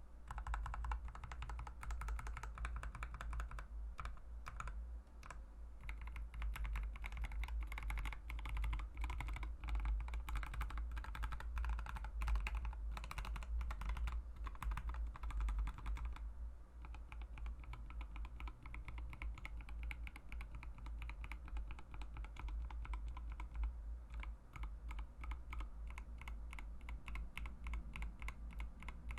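Continuous typing on a mechanical keyboard fitted with Mauve linear switches: a dense run of quick key clacks that turns more even and rapid about halfway through, over a steady low hum.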